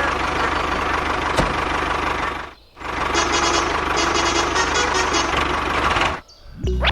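A machine's motor running steadily, cutting out briefly about two and a half seconds in, starting again, then stopping abruptly about a second before the end.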